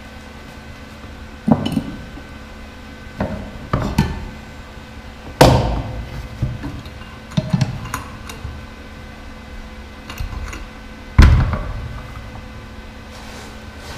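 Sharp metallic clanks and knocks of steel pliers and a small steel workpiece against a bench vise and the workbench, a string of separate hits with the loudest about five and a half and eleven seconds in, over a faint steady hum.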